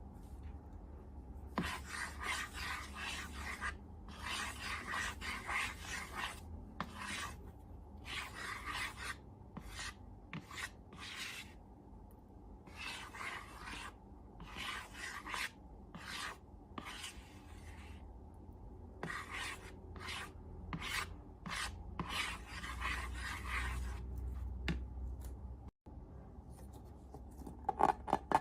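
A run of rubbing or scraping strokes, each lasting up to about two seconds, with short pauses between them.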